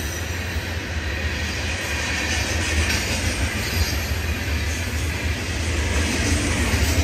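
Florida East Coast Railway freight cars rolling past at speed: a steady rumble of steel wheels on the rails.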